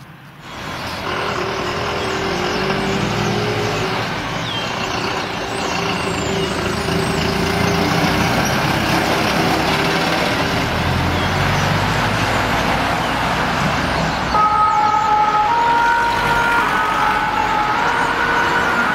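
Fire engine pulling away in street traffic with its engine running. About fourteen seconds in, its two-tone siren starts, alternating steadily between a low and a high note.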